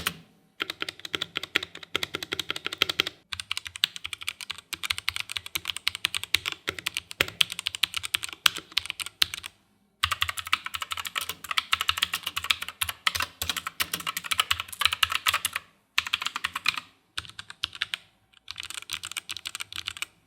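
Sound test of two budget mechanical keyboards being typed on in turns: a Redgear Shadow Blade MK853 with clicky Outemu blue switches and a Zebronics Nitro Pro with Outemu red switches and factory sound dampening. Fast runs of key clicks come in several stretches split by short pauses.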